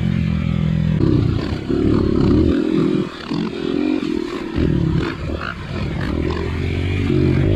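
Off-road motorcycle engine revving up and down in repeated bursts of throttle, easing off briefly about two and a half and four and a half seconds in.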